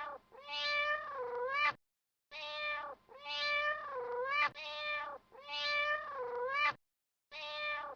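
Cat meowing over and over, short calls alternating with longer drawn-out meows whose pitch dips and rises again, with brief pauses between them.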